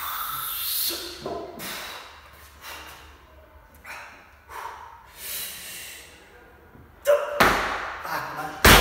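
A weightlifter's forceful breathing, a series of sharp exhales and snorts while he stands with the loaded barbell racked and sets for the jerk. About seven seconds in comes a loud thump as his feet stamp into the split of the jerk, and near the end a heavier, louder thud.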